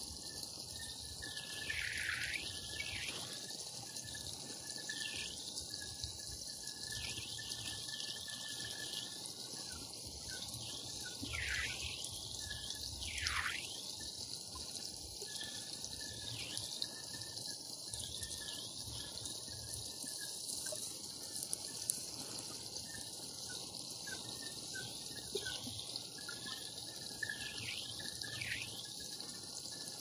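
Small creek trickling and splashing over a low step of rocks into a shallow pool, steady throughout. The sound has a warbling interference running through it.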